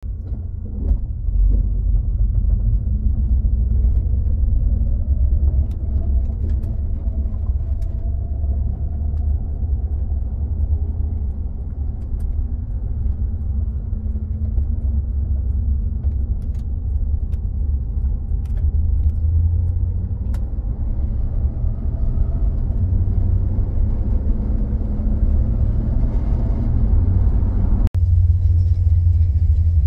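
Interior sound of a 1989 Dodge Ram Wagon 2500 being driven: its 318 cu in (5.2 L) fuel-injected V8 running under a low, steady road rumble, with the engine note rising and falling as the van speeds up and slows. A short break near the end.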